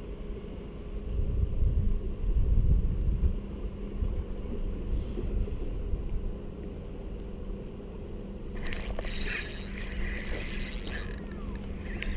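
Wind rumbling on the microphone over a steady low hum, with louder gusts in the first few seconds. From about two-thirds of the way through, a Penn Slammer III 4500 spinning reel is cranked close to the microphone, a dense rapid clicking whir that pauses briefly and starts again near the end.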